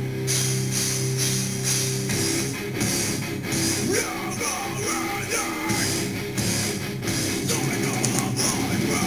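Heavy metal music with distorted electric guitar and drums; a voice sings over it from about four seconds in.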